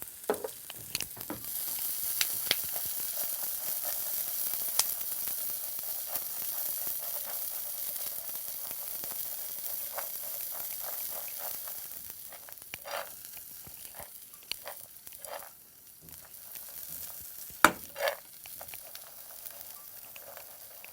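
Peanuts and freshly added sprouts sizzling in hot groundnut oil in a pan, stirred with a spatula that clicks and scrapes against the pan now and then. The sizzle is strongest at first and dies down over the second half.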